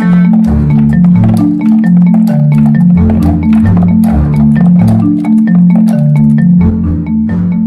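Background music: a repeating low bass line with quick, short plinking percussion notes over it.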